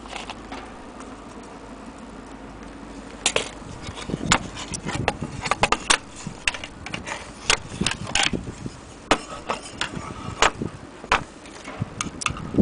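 Irregular clicks, taps and knocks of loose clock glasses and brass bezels being handled and set down on a table, starting about three seconds in after a quieter stretch.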